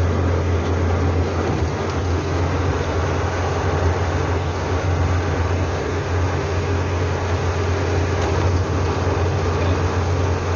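Hillman Super Minx cruising at road speed, heard from inside the cabin: a steady low engine drone under an even rush of tyre and wind noise.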